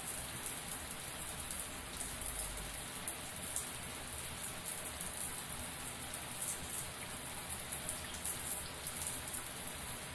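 Shower water spraying steadily, a dense even hiss of many drops pattering on a hard surface.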